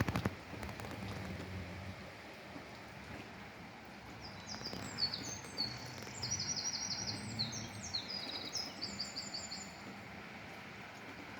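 Steady hiss of rain with a small songbird singing high, rapid repeated trills from about four seconds in until near the end. A few sharp clicks right at the start.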